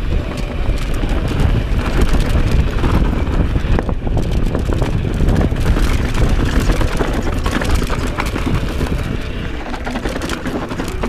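Mountain bike riding fast down dirt singletrack: wind buffeting the camera microphone and tyres rolling over the dirt. Many short knocks and rattles come from the bike jolting over bumps.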